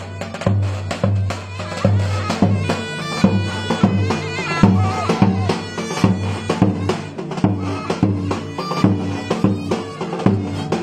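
Live Turkish folk dance music: a davul bass drum beating a steady rhythm of about two strokes a second under a reed wind instrument's ornamented melody, over a steady low bass tone.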